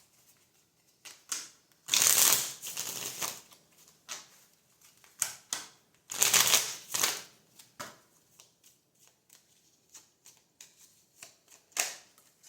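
A deck of tarot cards being shuffled. There are two longer bursts of shuffling, about two and six seconds in, with short flicks and taps of the cards being handled in between.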